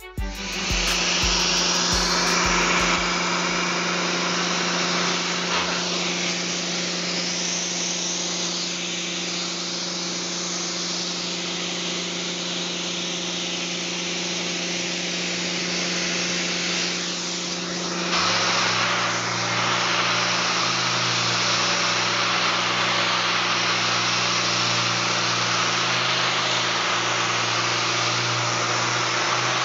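Steady workshop machine hum and hiss; about two thirds of the way in a random orbital sander starts and runs on the wet solid-surface countertop, its hum rising slightly in pitch near the end.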